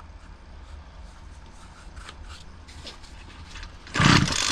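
Homelite 26cc two-stroke string trimmer being pull-started near the end: one loud rasping pull on the recoil starter cranks the engine, which does not catch. The owner suspects it is flooded.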